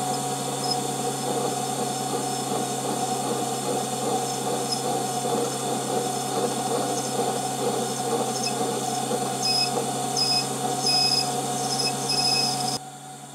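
Emco Unimat SL hobby lathe running steadily with a constant motor hum while a lathe tool cuts the face of an aluminium bar, with short high-pitched squeals from the cut, more frequent in the second half. The sound stops abruptly just before the end.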